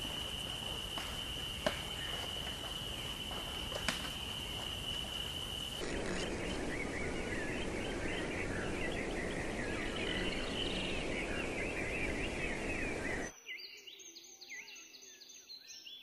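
Outdoor nature ambience in three sections. First, a steady high tone, typical of an insect, sounds over background noise, with two sharp clicks. About six seconds in it switches to a busy chatter of bird calls over a rushing noise, and near the end, after a sudden drop in level, a series of short, clear whistled bird notes.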